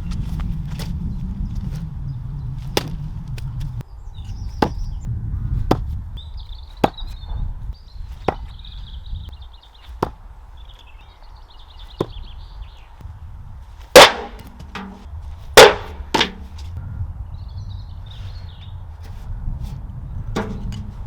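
Throwing dagger, a sharpened steel SDS masonry drill bit, striking a wooden target with sharp thunks: a string of light knocks about a second apart, then two much louder hits about two-thirds of the way through and another near the end.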